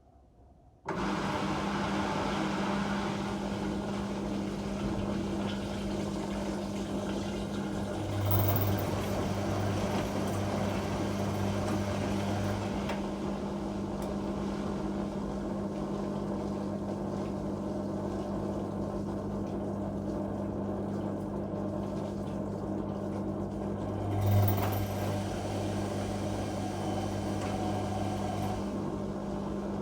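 Whirlpool Indiana 1400 washing machine starting up abruptly about a second in and then running with a steady hum, a deeper drone coming and going over it, and two brief swells in level.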